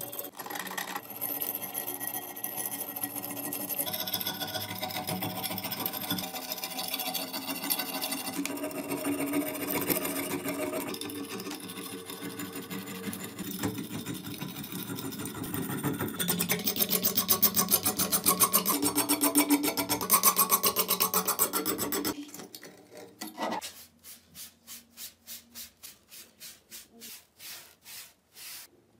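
A metal scraper scraping and chipping caked dirt and rust off an old cleaver blade in rough strokes, getting louder and quicker about two thirds of the way in. Near the end a bristle brush sweeps loose dirt off the work surface in soft, even strokes, a few a second.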